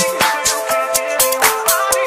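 Background electronic music with a steady, fast beat.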